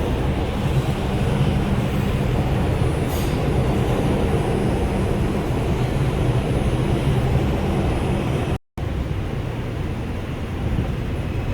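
R142 subway car running on the track, heard from inside the car: a steady rumble with a low hum. The sound cuts out for a split second about nine seconds in, and the hum is a little weaker afterwards.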